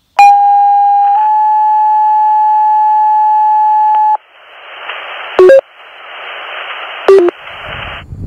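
Fire dispatch two-tone sequential page heard over a scanner: one steady tone for about a second, then a slightly higher tone held for about three seconds. Then open-channel radio hiss, broken twice by short two-pitch key-up beeps, stops just before the end.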